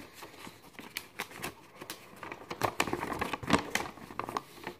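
A folded sheet of paper being unfolded and handled: a run of crisp rustles and crinkles, busiest about two and a half to three and a half seconds in.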